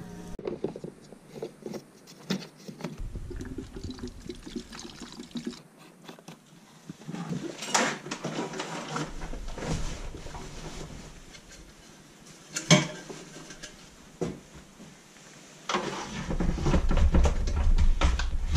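Fuel pouring and gurgling through a flexible hose into a snowmobile's fuel tank, followed by knocks, clicks and rustling as gear is packed into a cargo box. About sixteen seconds in, a low steady rumble starts and grows louder.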